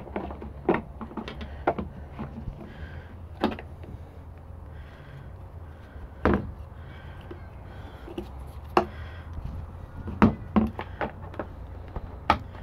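Scattered sharp plastic clicks and knocks from handling the back of an LED tail lamp housing and its wiring harness, tucking wires in and fitting connectors, with a steady low hum beneath.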